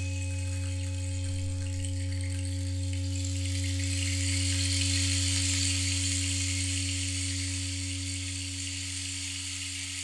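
Electronic intro music: a steady low synth bass drone with a few held higher tones, under a hissing wash that swells about four seconds in and thins out toward the end.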